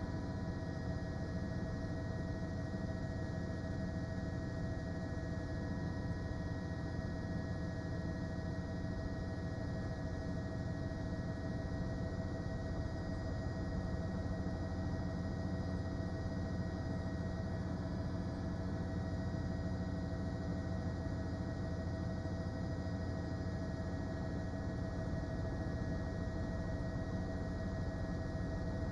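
A steady hum with several constant held tones over a low, even noise floor, unchanging throughout.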